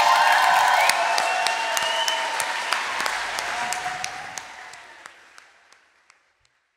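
Concert audience applauding and cheering, with some gliding whoops over the dense clapping. It fades out steadily until it is gone about six seconds in.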